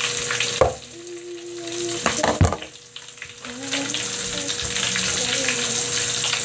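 Bath crackles popping and fizzing in a bowl of water: a dense crackle of tiny snaps, really loud, that briefly thins out twice. Two sharper knocks stand out, about half a second in and about two and a half seconds in.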